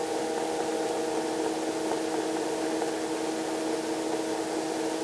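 Robinson R22 helicopter in flight, heard from the cabin: a steady drone of several pitched tones with an even hiss over it.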